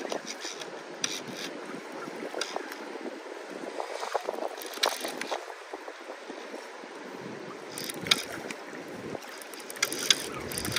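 Flowing river water rushing and lapping, with scattered short clicks and knocks.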